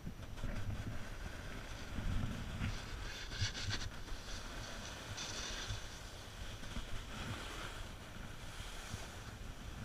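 Wind rumbling on a small camera microphone while skis slide and scrape over snow, with louder hissing scrapes about three and five seconds in.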